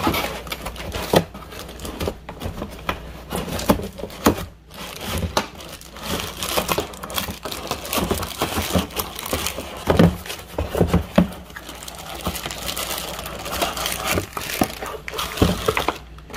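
Plastic packaging crinkling and rustling as a power cord in its plastic bag is handled and pulled from a cardboard box, with irregular sharp crackles and knocks throughout.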